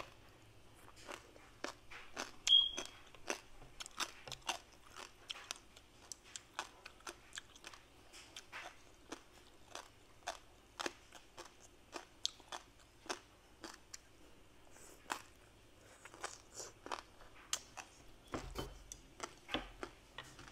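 A person chewing crunchy food close to the microphone: an irregular run of crisp crunches, a few a second. A brief high ping about two and a half seconds in is the loudest sound.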